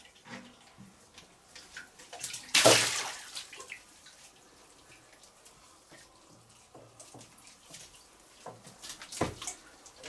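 Water splashing as a plastic bottle trap is hauled up out of a shallow pool by its cord, with one loud splash about two and a half seconds in, then smaller splashes and drips.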